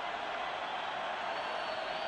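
Steady noise of a large stadium crowd waiting, with a faint high whistle in the second half.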